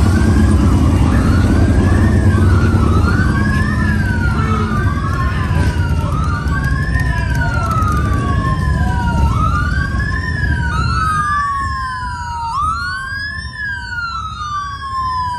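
Several police sirens sounding at once, overlapping sweeps that rise sharply and fall back about once a second, over the low rumble of car engines in slow street traffic. The engine rumble drops away about two-thirds of the way through, leaving the sirens clearer.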